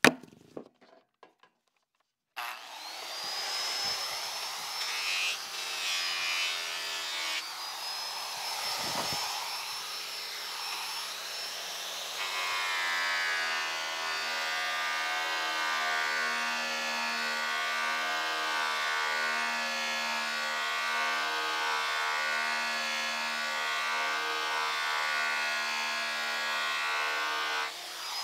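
Corded grinder spinning an airway buffing wheel loaded with polishing compound across an Airstream trailer's aluminum skin: a steady high motor whine with the wheel rubbing on the metal. It sets in sharply about two seconds in.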